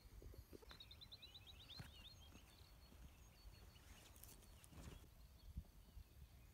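Near silence: a faint low rumble, with a brief faint bird trill of quick high notes about a second in and a few faint clicks later.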